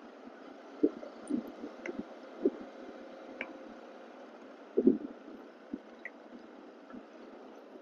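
Faint steady hiss of wind and road noise from a moving motorcycle, picked up by a clip-on wireless mic, with a few soft rubbing thumps on the mic. The loudest is a double thump about five seconds in.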